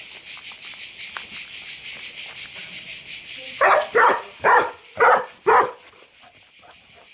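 A dog barks five times, about half a second apart, over a high, pulsing chorus of insects that is loudest before the barking and fainter after it.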